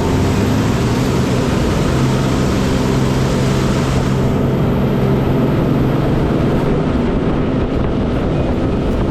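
Bridge erection boat's diesel engine running steadily under power, with a hiss over it that drops away about four seconds in.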